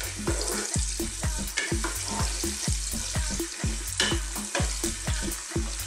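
Sliced red onions sizzling in hot sunflower oil as a wooden spoon stirs them around the pot. A regular low beat, about three a second, runs underneath.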